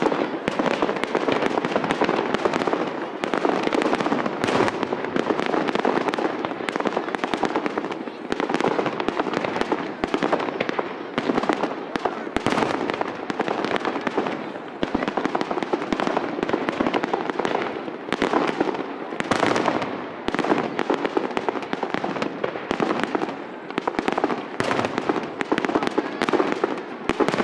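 Fireworks display with aerial shells bursting in quick succession: a dense, continuous barrage of overlapping bangs.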